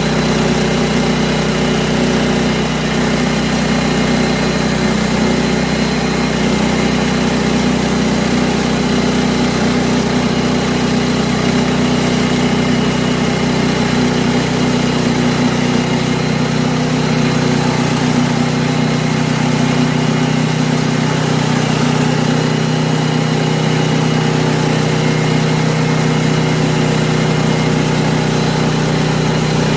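Portable sawmill's engine running steadily at an even pitch while a pine log is milled into a beam.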